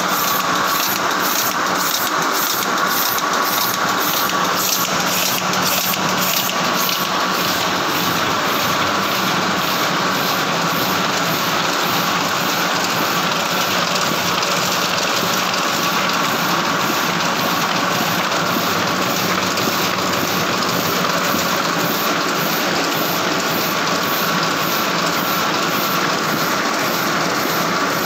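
Heidelberg GTO sheet-fed offset press running at speed: a steady mechanical clatter with a regular beat of about two a second.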